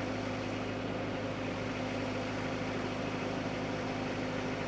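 Tractor engine idling steadily, a constant low hum with no change in speed.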